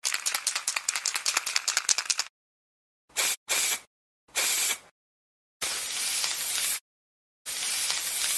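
Aerosol spray can shaken, its mixing ball rattling rapidly for about two seconds, then sprayed in three short hisses followed by two longer ones.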